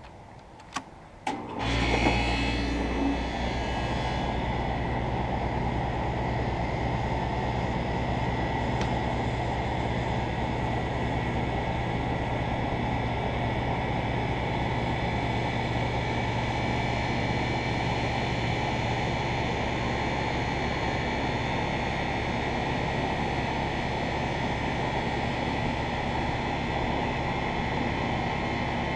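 York central air conditioner's outdoor unit starting up: a couple of clicks, then the compressor and condenser fan come on about two seconds in. They settle into a steady low hum with fan noise.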